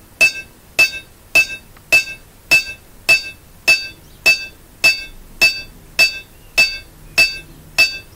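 Hand hammer striking a wrought iron dagger blade on a steel anvil at a steady beat of a bit under two blows a second, each blow a sharp metallic clink that rings briefly. The edge is being cold-hammered to thin and work-harden it (hammer hardening).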